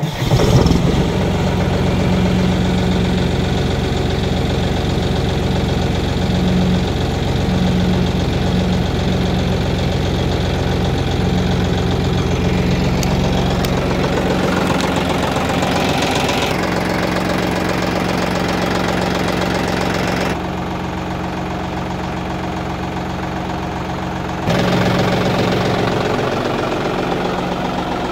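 John Deere 5310 tractor's three-cylinder diesel engine on a cold start after standing for 15 days: it fires up abruptly at the start and settles into a steady idle.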